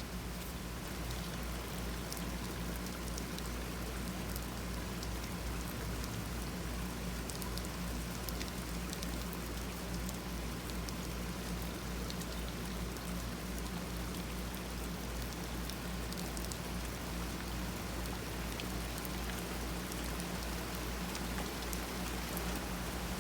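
Steady rain falling, with many small drop ticks, over a low steady hum.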